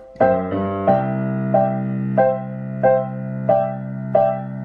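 Digital piano on its piano voice, played hands together: a chord repeated about every two-thirds of a second in the right hand, over left-hand bass notes that settle onto a held low note about a second in.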